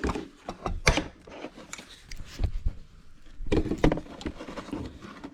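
Handling noises: scattered light clicks and knocks, with a short cluster of them about three and a half seconds in.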